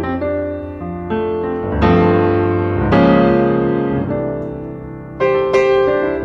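Background piano music: slow notes and chords, each struck and left to ring and fade before the next.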